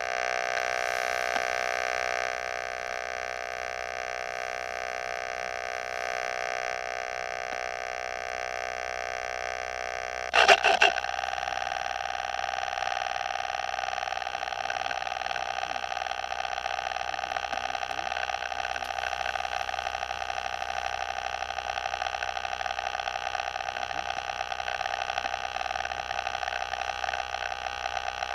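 Steady electrical whine of several fixed tones from a model plane's onboard electronics as it lies powered in tall grass after landing. About ten seconds in, a short loud crackle breaks in, and the whine then settles at a different pitch.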